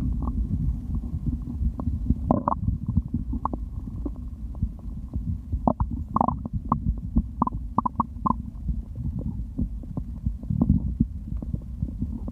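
Stomach growling after drinking: a steady low rumble with many short, sharp gurgles and pops over it, most of them in the middle.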